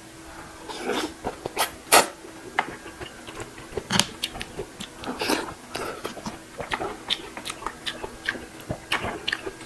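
Mukbang eating sounds from a person eating beef shank soup close to the microphone: irregular wet chewing smacks and mouth clicks, with a couple of longer noisy sounds about a second in and near the middle.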